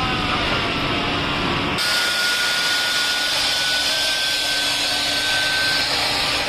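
Steel rolling-mill machinery. It starts with a heavy rumble and several machine whines gliding down in pitch at the cooling bed. About two seconds in, this gives way suddenly to a steady hiss with a single high whine at the cold shear, which steps up slightly in pitch midway.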